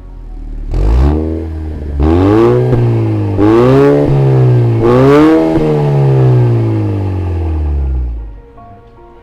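Car engine revved through an aftermarket valved sports exhaust: four quick throttle blips, each rising and falling in pitch, then the revs drop back slowly and die away near the end.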